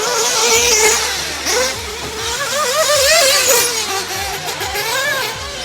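Small nitro RC truck engines with a high-pitched whine, the pitch rising and falling sharply again and again with the throttle.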